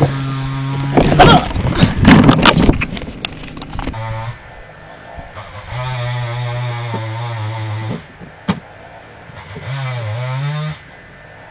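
Electric motor of a battery-powered ride-on toy tractor whining steadily in spurts. Loud plastic clattering and knocks come about one to three seconds in. The motor runs again for about four seconds, then for a last short spurt whose pitch dips and rises back.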